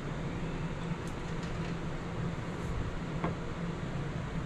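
Steady low machine hum, with a few faint clicks over it.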